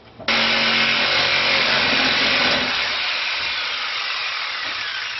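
Jigsaw with a metal-cutting blade starting about a third of a second in and sawing through a water heater's anode rod, a loud steady sawing noise. The motor hum drops out about two and a half seconds in, and the sawing slowly grows quieter toward the end.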